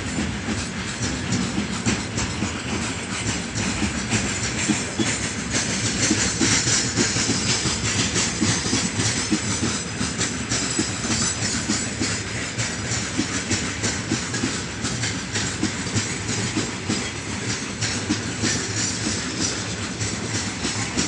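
Freight train of loaded gondola wagons rolling past, gathering speed: a steady rumble with rapid clickety-clack of steel wheels over rail joints.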